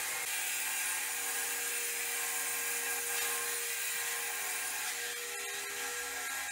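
Angle grinder running steadily while cutting floor tile, heard from another room: a constant high hiss over a thin, steady whine.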